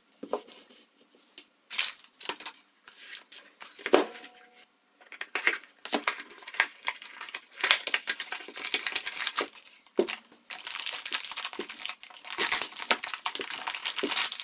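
Packaging being handled: a few clicks and knocks, one with a brief ring about four seconds in, then a small cardboard box and a clear plastic bag crinkling as a tool holder is unwrapped.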